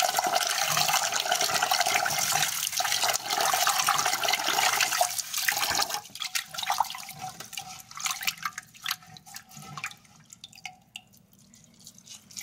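Tap water running into a pot of rice while a hand swishes the grains to wash them. About halfway through the running water stops, and the hand keeps sloshing the rice in the water more quietly, growing faint near the end.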